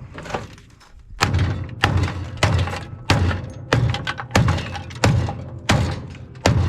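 Repeated heavy hammer blows on an air conditioner unit being torn apart for scrap. There are about nine dull thuds in an even rhythm, roughly one every 0.6 seconds, starting about a second in.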